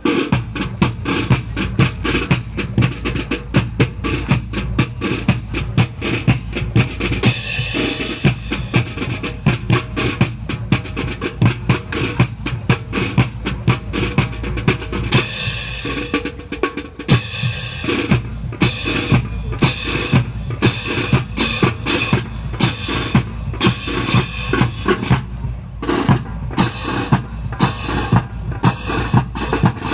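Drum-led music with a steady, driving beat of bass drum and snare.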